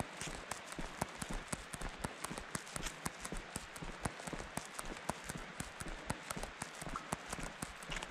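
Footsteps crunching on a gravel trail, many short sharp clicks in an uneven walking rhythm, over a steady hiss.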